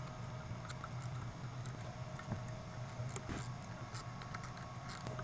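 Hand driver tightening the mounting bolts of LED lights on a light bar: scattered light metal clicks and ticks of the tool and bolts against the light housings, over a steady low hum.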